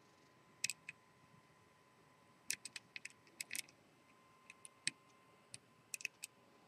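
Faint, irregular small metallic clicks from lock-picking tools working the rotating discs of a three-disc Sargent & Greenleaf environmental disc-detainer padlock, coming in short clusters.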